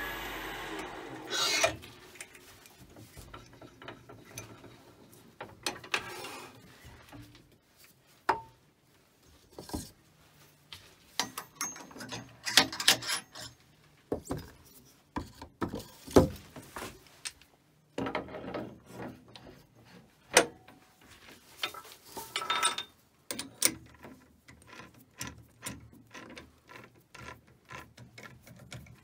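Wood lathe running, then stopping about two seconds in. After that come scattered knocks, clicks and rubbing of wood and metal as the turned blank is taken off and a new wooden blank is fitted and tightened in a metal four-jaw chuck.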